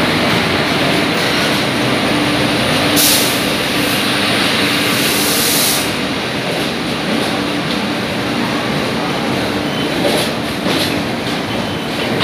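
LHB passenger coaches of an arriving Indian Railways express rolling past along the platform: a steady, loud rumble of wheels on rail. A brief high hiss comes about three seconds in and a longer one around five seconds in, and there are a couple of knocks about ten seconds in.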